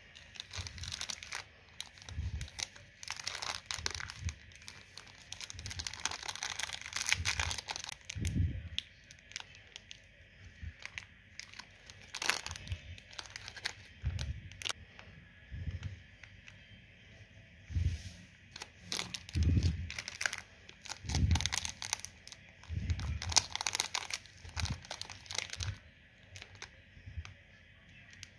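Plastic jelly-candy wrappers being handled, crinkled and torn open, in irregular crackles with dull thuds between them.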